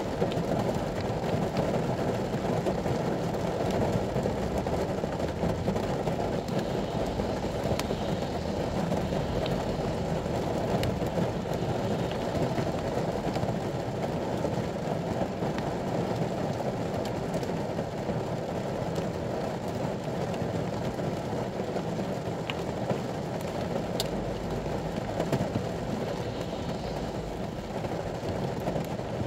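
Steady rumble inside a ute's cabin with its engine running in the rain, with a few faint ticks scattered through.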